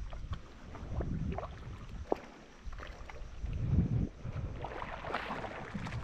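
Water sloshing and splashing in irregular strokes, with wind rumbling on the microphone.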